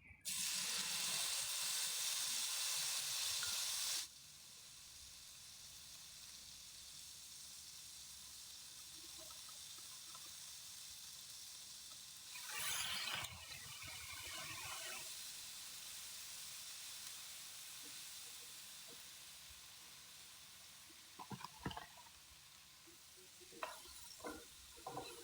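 Hot oil sizzling as catfish fries in a pan: loud for the first four seconds, then dropping abruptly to a softer steady sizzle. There is a brief clatter about halfway through, and a few light knocks near the end.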